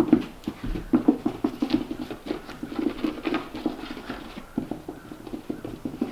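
A puppy scampering about, its paws pattering in quick, irregular steps.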